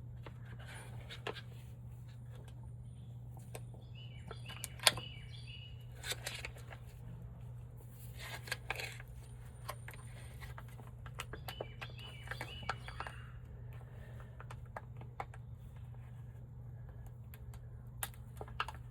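Faint bird chirps in short bursts over a steady low hum, with scattered small clicks and knocks, the sharpest about five seconds in.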